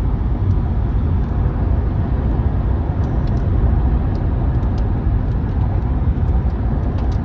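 Hard rain pouring: a steady rushing noise with a strong low rumble and scattered sharp ticks.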